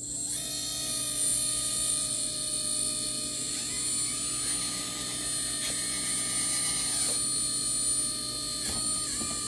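RC excavator's electric-driven hydraulic pump switching on and running with a steady high whine, with a few pitch shifts and light clicks as the directional valve is worked.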